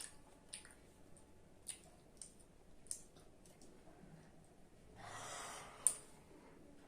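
A person yawning: a breathy exhale of about a second, starting about five seconds in and ending in a sharp click. A few faint clicks are scattered before it.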